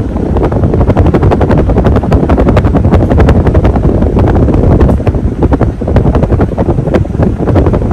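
Modern Fan Company Cirrus ceiling fan running, its blades' airflow buffeting the microphone in a loud, rapid, rhythmic chopping rush.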